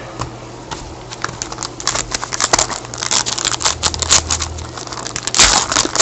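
Trading cards and their packaging being handled and sorted on a table: irregular crinkling and light clicks, getting louder and busier near the end.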